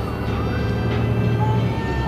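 Iveco Crossway bus's diesel engine idling at a stop, a steady low drone that swells slightly through the middle. Faint gliding tones sit above it.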